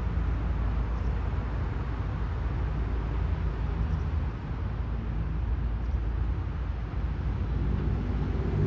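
VL10 electric locomotive hauling a passenger train slowly into the station, a steady low rumble. A hum of several steady tones joins in near the end as it draws closer.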